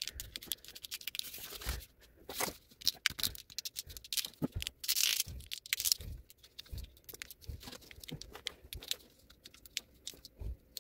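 Corrugated plastic split wire loom being worked over wires by hand: irregular crinkling, scraping and clicking of the ribbed plastic, with a longer scratchy rush about halfway through.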